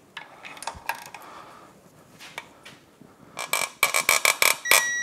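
Click-type torque wrench on the lower unit's trim tab bolt: a quick run of ratcheting clicks, then one sharper click with a brief metallic ring near the end as the wrench releases at its set torque of 31 foot-pounds.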